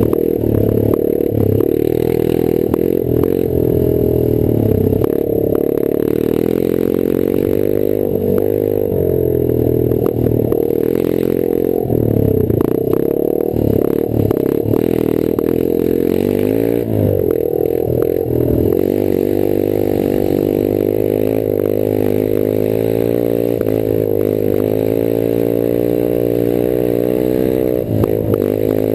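Rieju Marathon 125 AC's air-cooled single-cylinder four-stroke engine running through an open exhaust with no silencer, revving up and down as the bike is ridden off-road. The throttle is rolled off and back on several times, with a steadier pull in the later part. Light knocks and rattles from the bike run under the engine note.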